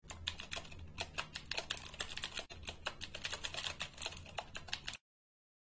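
Fast typing on the clicky version of a Das Keyboard Professional mechanical keyboard: a rapid stream of sharp keystroke clicks that stops abruptly about five seconds in.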